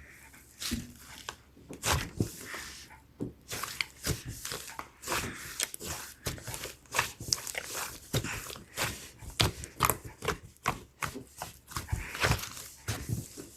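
Hands squeezing and stretching slime: an irregular, quick run of wet pops and crackles, several a second.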